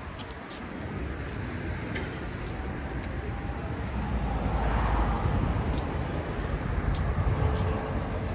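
Street traffic rumbling steadily, with a vehicle passing and growing louder about halfway through.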